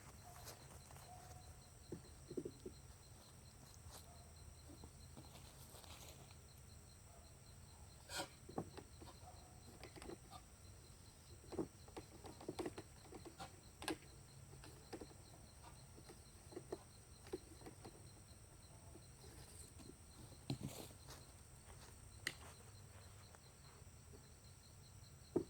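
Faint, scattered clicks and knocks of a foam golf ball being loaded into a homemade PVC air cannon, over a steady, faint, high-pitched pulsing chirr.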